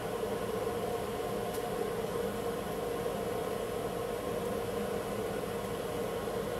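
Steady mechanical drone with an even rushing noise from the furnace-room machinery, running unchanged while molten silver is poured into an ingot mold.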